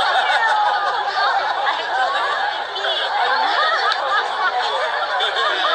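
Several people laughing and chattering at once, their voices overlapping.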